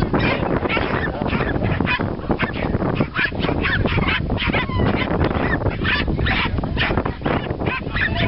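A pack of terriers barking and yapping in an excited chorus, many short high calls overlapping several times a second without a pause.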